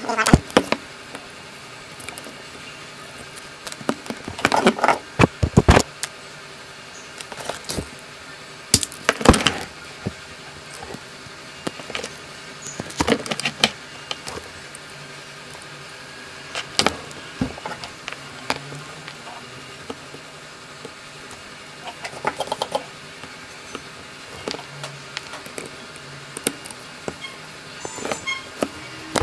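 Irregular clicks, taps and rattles of wires, tools and a circuit board being handled on a workbench while the amplifier board is rewired, over a faint steady hum.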